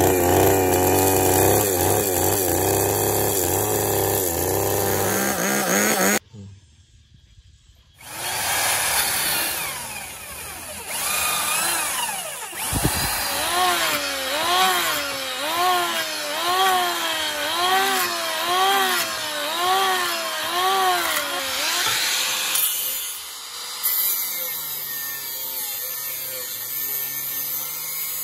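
Electric hand planer shaving a wooden block, its motor whine dipping and recovering in pitch with each pass, roughly once a second. A loud power tool runs at first and stops for about two seconds before the planing. Near the end comes a steadier hissing grind: an angle grinder on steel.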